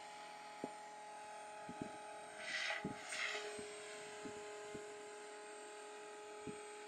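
Distant whine of a Logo 400 electric RC helicopter in flight: several steady tones, with a lower one joining about three seconds in. Faint clicks and two brief hisses come between two and four seconds in.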